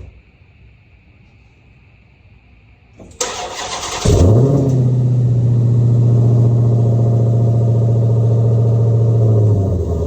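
Dodge Charger Hellcat Redeye's supercharged 6.2-litre HEMI V8 started: the starter cranks for about a second, then the engine catches with a short rev and settles into a steady fast idle that eases slightly near the end.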